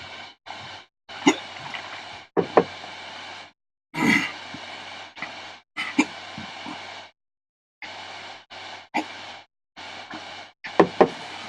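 A man's sighs and heavy breaths with a few short, sharp throat and mouth sounds, from a man who has just said he has the burps after eating a superhot pepper. The sound cuts in and out to dead silence several times.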